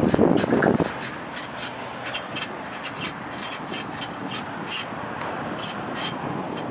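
Bicycle being ridden slowly, with a rubbing noise and a regular ticking of about two clicks a second. Wind buffets the microphone for about the first second, then drops away.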